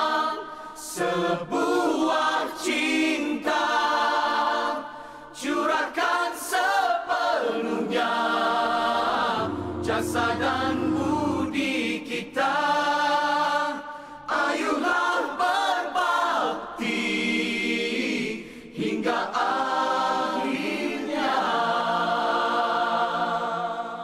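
A choir-like group of voices singing a song in Malay, phrase after phrase with short breaks between.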